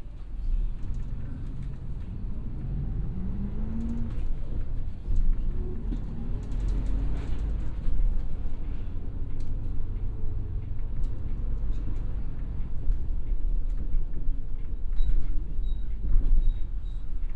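Inside a moving city bus: the diesel engine rumbles as the bus gets under way, its note rising over a few seconds as it gathers speed, with the body creaking and rattling.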